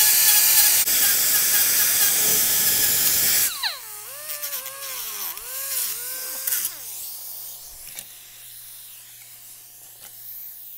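Die grinder with a sanding disc sanding a radius onto the steel jaw tip of a pair of locking pliers, loud and steady for about three and a half seconds. Then it comes off the work, and its whine wavers up and down and winds down, fading out near the end.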